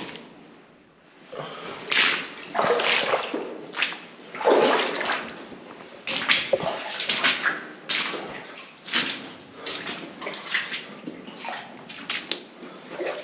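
Footsteps splashing and sloshing through shallow water, irregular, one or two steps a second.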